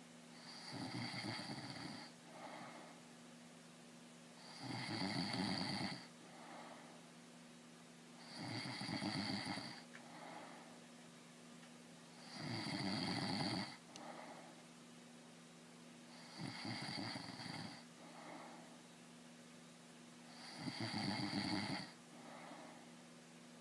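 A sleeping man snoring in slow, regular breaths: six snores about four seconds apart, each lasting over a second and followed by a shorter, softer breath.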